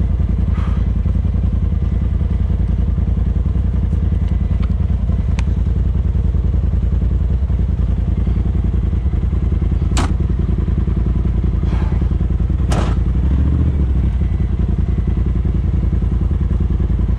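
Polaris RZR side-by-side's engine running steadily at low speed as it crawls over a dirt and rock trail, heard from inside the cab. A few sharp knocks and clatters come about ten and thirteen seconds in as the machine crosses rocks.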